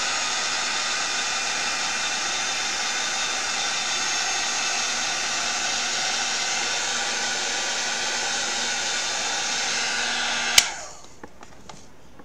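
Hand-held hair dryer blowing steadily with a faint motor hum, drying wet chalk paste, then switched off with a click about ten and a half seconds in.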